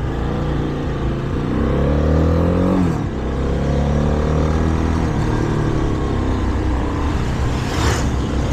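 Shineray Flash 250F motorcycle engine pulling away and accelerating. The revs climb, drop sharply at an upshift about three seconds in, then climb again through the following gears. A short rush of noise comes near the end.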